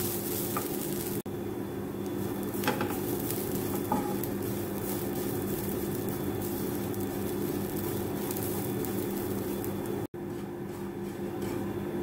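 Grated coconut dry-roasting in a pan with no oil over a low flame, stirred with a spoon: a steady faint sizzle and scraping with a low hum underneath and a couple of light spoon knocks against the pan. The coconut is part-way through browning.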